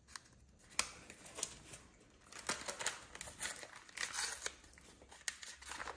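Scattered soft crinkling, rustling and small snaps of black disposable gloves being peeled off the hands.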